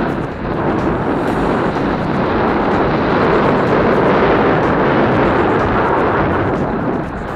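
Steady, loud rush of wind buffeting a helmet-mounted action camera's microphone while mountain biking along a dirt trail, with the low rumble of riding over the dirt mixed in. The noise dips briefly twice, just after the start and near the end.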